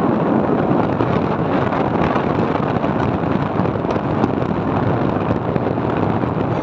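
Steady rush of wind on the microphone and road noise from a motorbike ridden along a paved road, with its engine running underneath.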